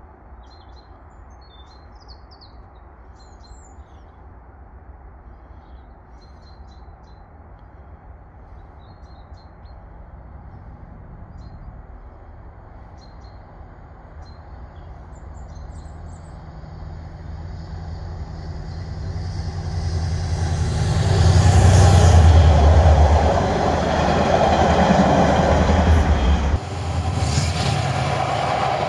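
Birds chirping over a faint low rumble, then a Class 68 diesel-electric locomotive hauling nuclear flask wagons approaches, growing steadily louder, and passes close by with its engine running and wheels rolling on the rails. Near the end the locomotive's low engine note drops away, leaving the rolling of the wagons.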